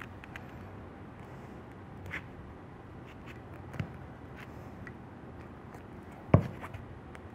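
An X-Acto knife working along a bonded red-and-black power wire, with light scrapes and clicks as the blade splits the two conductors apart. One sharp knock sounds about six seconds in.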